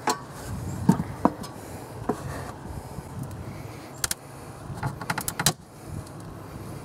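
Handling noises as wooden hive boards and gear are moved: a few light knocks, then quick clusters of sharp clicks about four and five seconds in.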